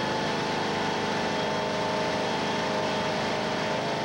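An engine running steadily with an unchanging drone and a thin steady whine in it.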